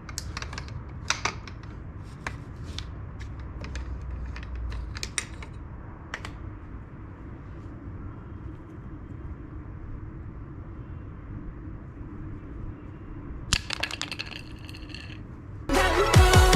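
Light clicks and taps of small hard objects being handled, quick and irregular at first and then again in a short cluster near the end, over a low steady hum. Loud electronic dance music with a heavy beat starts about a second before the end.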